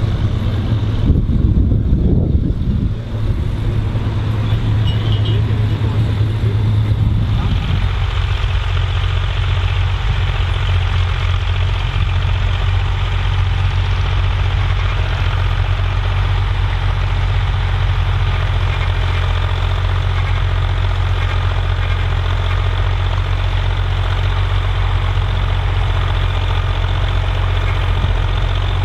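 Bukh Juno tractor's diesel engine running steadily with a low, even beat. It is louder and rougher for the first few seconds, then settles to a smoother, steady run from about seven seconds in.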